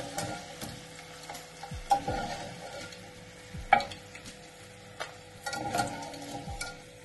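Hot oil sizzling in a frying pan as fried potato wedges are lifted out with a wire skimmer, with a few sharp clinks of the skimmer against the pan and plate.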